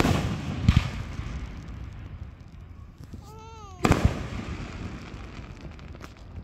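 Aerial fireworks shells bursting overhead: a loud bang at the start, a double crack under a second in, and another sharp double bang about four seconds in, each trailing off in a low rumbling echo.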